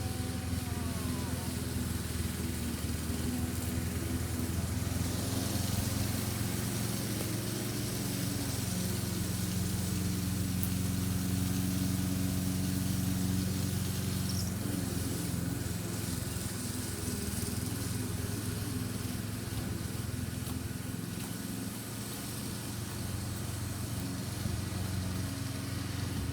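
Steady low mechanical hum, like a motor running, with an even hiss over it.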